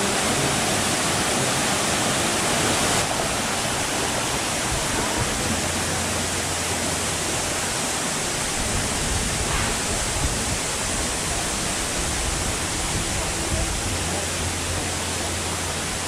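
Lanka Ella waterfall: falling water rushing in a loud, steady, even noise, dipping slightly about three seconds in.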